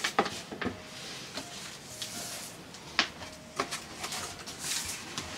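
Cardboard box being opened by hand: scattered scrapes and knocks of the flaps, with a sharp knock about three seconds in, and a short rustle of packing paper near the end.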